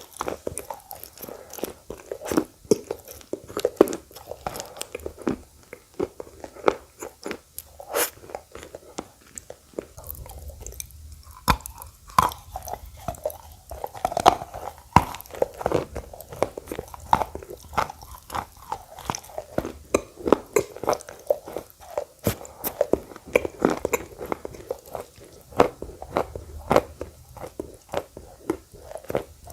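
Close-miked biting and chewing of edible clay: many sharp, irregular crunches with wet mouth sounds between them.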